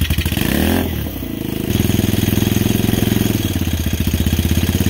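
Small gasoline engine of a home-built reverse trike running just after starting, with a fast, even putter. Its revs fall about a second in, then it settles into a steady idle.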